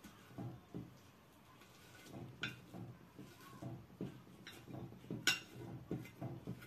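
Metal fork mashing boiled potatoes on a ceramic plate: soft, irregular pressing strokes with a few sharp clinks of the tines against the plate, the loudest about five seconds in.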